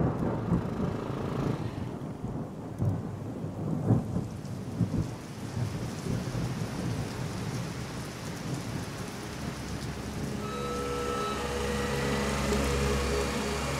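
Thunder rumbling in uneven swells, with rain. From about ten seconds in, a motor scooter's small engine runs steadily.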